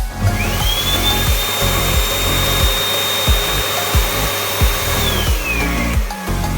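Power Jet PJ 8666 double-jet hand dryer running: its motor spins up with a rising whine, blows a strong steady jet of air, then winds down with a falling whine about five seconds in. Background music with a steady beat plays underneath.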